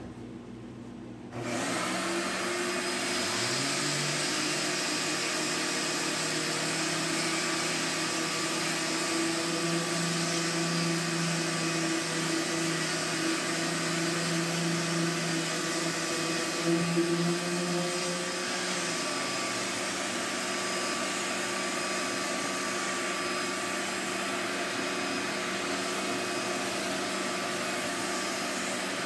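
Shop vacuum switched on about a second in and running steadily, with a dust-extracted random orbital sander spinning up just after and sanding a fiberglass boat's gel coat repair. The sander winds down about two-thirds of the way through while the vacuum keeps running.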